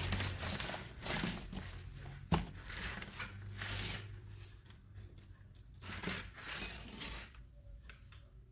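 Hands handling and working on small objects: irregular rustling and scraping with scattered clicks and one sharp knock about two and a half seconds in.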